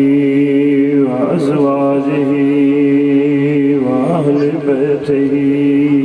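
A man chanting Arabic in long, drawn-out melodic notes, as in the opening praise of a religious address, with short breaks between notes about one and four seconds in.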